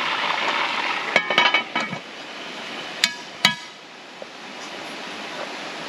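Metal cookware clinking: a quick run of sharp, ringing metal knocks, then two more single clinks about half a second apart a little after three seconds in. A steady rushing of creek water runs underneath.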